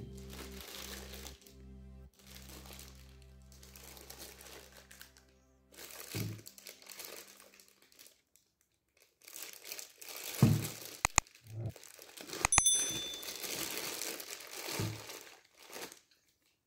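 Background music with a steady low drone fades out over the first several seconds. From about halfway in, the clear plastic bag wrapped around a car radio head unit crinkles and rustles as it is handled, with a few sharp clicks.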